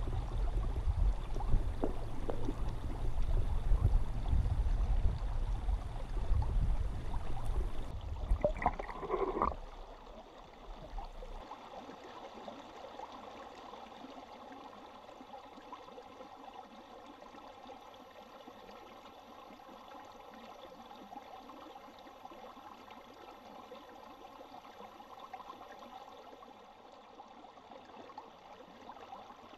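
Water heard through a submerged camera: the creek's current makes a low rumble with irregular knocks. About ten seconds in it cuts to a much quieter, faint steady hiss with a faint hum.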